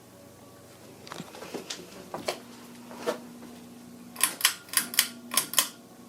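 Ceiling fan motor humming with a steady low tone, over sharp clicks: a few scattered ones, then about seven quick, louder ones in a row in the second half.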